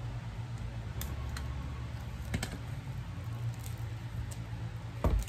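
Scattered small clicks and crinkles of plastic wrapping being picked at and peeled off a CD album package by hand, over a low steady hum. A dull thump comes just before the end.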